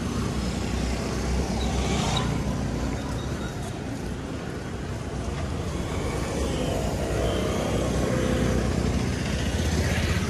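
Street traffic: motor vehicles passing close by with engines running, louder around two seconds in and again near the end.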